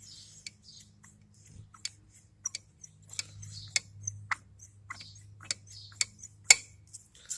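Irregular light clicks and brief scrapes of small metal parts as an IHC engine's mixer is handled and taken apart by hand, over a faint steady hum.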